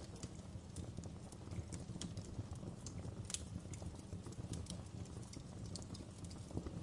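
Wood fire crackling in a stone fireplace: irregular sharp pops and snaps over a steady low rumble of the burning fire.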